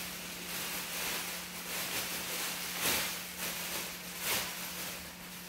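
Clear plastic crinkling and rustling in irregular swells as a hoop skirt wrapped in it is twisted and folded by hand, over a steady low hum.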